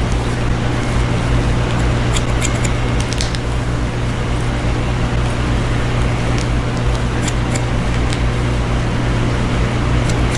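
Steady background hum and hiss, with a few faint snips of hair-cutting shears near the start, the middle and the end.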